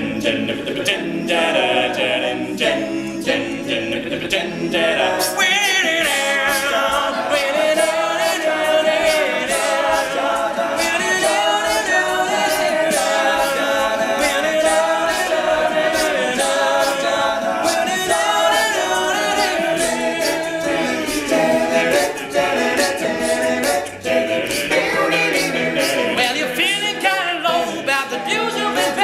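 Men's a cappella group singing in several vocal parts with no instruments.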